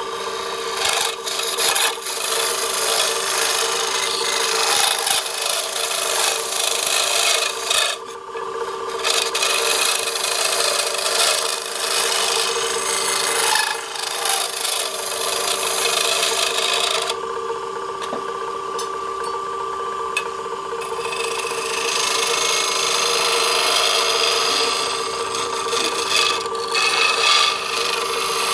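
A wood lathe hums steadily while a flat steel scraper is held against the spinning wooden box blank, making a continuous rasping scrape. The scraping stops for about a second eight seconds in and again for a few seconds past the middle, leaving only the motor hum.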